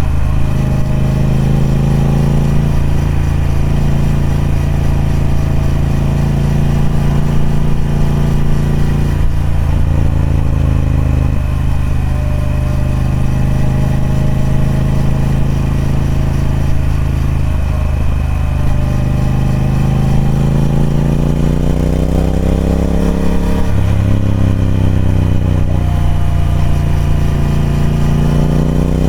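Triumph Speed Twin 1200's parallel-twin engine running through its stock exhaust, its pitch rising and falling several times.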